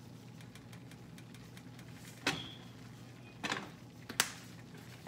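Faint crackle of a flour-and-oil roux cooking in a skillet, broken by three sharp clicks a little over two seconds, three and a half seconds and four seconds in as plastic seasoning shaker containers are handled.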